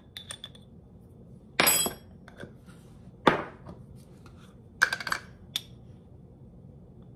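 A few separate clinks and knocks: a metal measuring spoon tapping against a ceramic bowl, and spice jars handled as spices are spooned into flour for a dredging mix.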